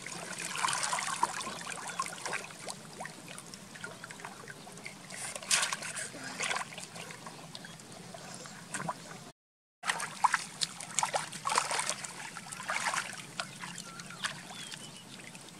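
Shallow water splashing and sloshing as people wade through it and drag a bamboo fish trap, in irregular bursts. The sound drops out completely for about half a second around the middle.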